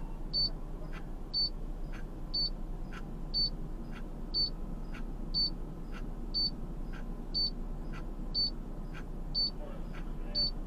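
A short, high-pitched electronic beep repeating steadily about once a second, with a fainter tick midway between beeps, over a steady low rumble.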